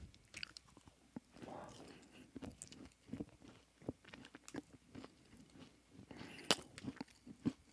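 Faint chewing of a dense, soft oat energy bar: scattered small mouth clicks, with one sharper click about six and a half seconds in.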